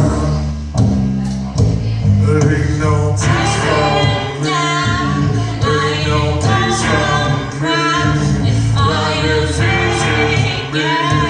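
Blues-rock band playing, with sung vocals coming in about three seconds in over steady low bass notes.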